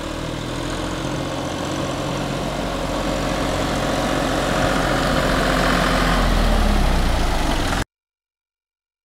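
2004 John Deere 5320 tractor's diesel engine running as the tractor drives up and passes close by, growing steadily louder, with a slight drop in pitch near the end, then cutting off suddenly about eight seconds in.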